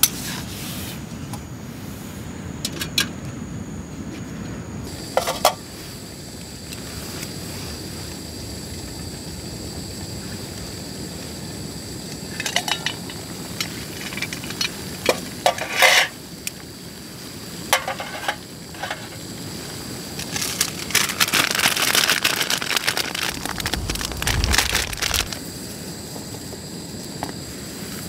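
Small camp stove burning with a steady hiss under a pot of water, with scattered clinks of metal cookware, lid and chopsticks. For a few seconds near the end a food packet crinkles loudly as it is handled.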